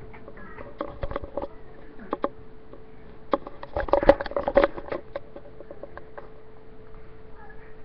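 A camera being handled: irregular rubbing, clicks and knocks against it, loudest in a cluster about four seconds in, over a steady hum.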